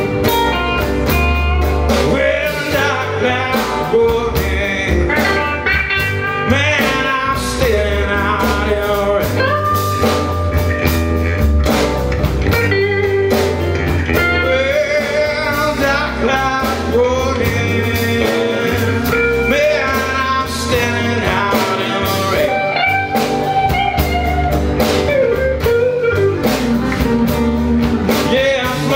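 Live blues band playing a slow blues, with electric and acoustic guitars, bass and drums.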